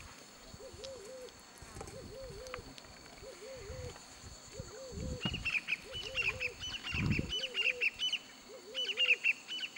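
Wild birds calling. A low, wavy call repeats about once a second throughout, and from about five seconds in, rapid high chattering calls join and become the loudest sound. A low rumble comes about seven seconds in.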